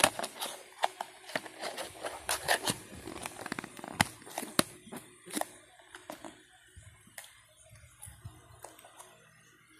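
Hands handling a clear plastic tub of coins in plastic capsules: a quick run of sharp clicks and knocks, dense for the first five seconds, then sparser.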